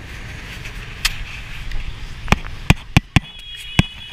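Low rumble of motorbike traffic and wind on a camera riding a motorbike. In the second half comes a run of five sharp knocks close to the microphone, and near the end a thin, high, steady tone sounds for about a second.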